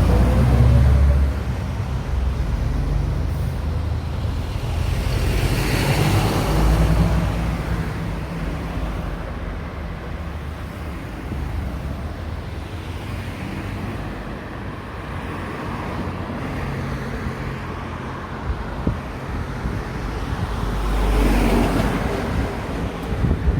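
Road traffic: motor vehicles passing one after another. The loudest passes come at the start, about six seconds in and near the end.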